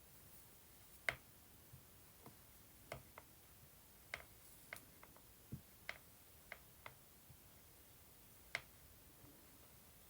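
Faint, irregular light clicks and taps, roughly one or two a second, the loudest about a second in, as a hot soldering iron tip is touched down on fabric or paper to burn holes in a lace pattern.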